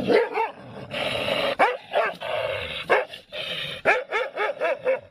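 A dog barking in short, high yips, with a quick run of about five near the end.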